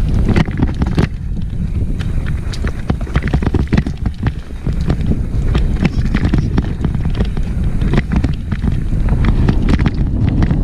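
Wind buffeting the microphone on a downhill mountain bike run, with rapid, irregular clicks and rattles from the bike jolting over rough, rocky trail.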